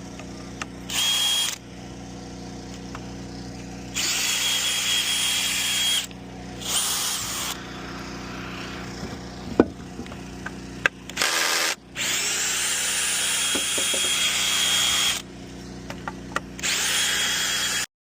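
Power drill running in about six short runs, backing the screws out of a damaged bridge board to take it loose, with a few short knocks between the runs. A steady low hum sits underneath.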